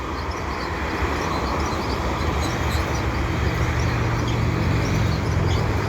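CN mixed freight train passing, with diesel locomotives and railcars making a steady rumble on the rails. A low engine drone grows louder from about halfway.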